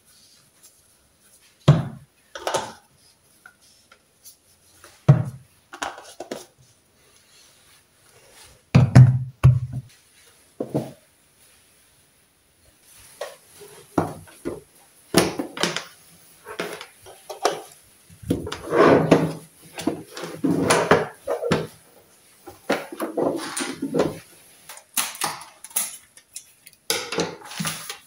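Kitchen handling sounds: separate plastic clacks and knocks as small plastic food containers are closed with snap-on lids and set down on a countertop. About halfway through comes a busier stretch of clattering and rustling as a vacuum sealer and its plastic bags are handled.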